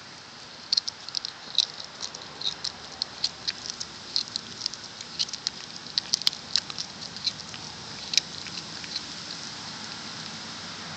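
A cat crunching on a raw chicken wing, chewing the bones in a rapid, irregular run of crisp clicks that stops about nine seconds in.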